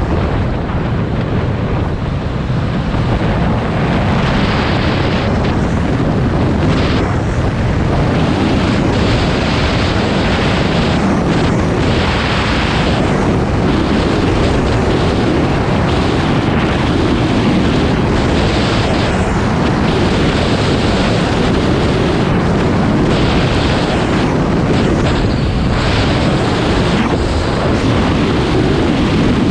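Suzuki DR650 RSE's single-cylinder four-stroke engine running steadily at road speed, largely buried under wind buffeting the microphone.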